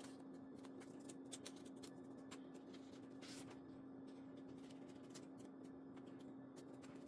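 Near silence: a faint steady hum, with scattered soft ticks and a brief rustle of paper and stickers being handled.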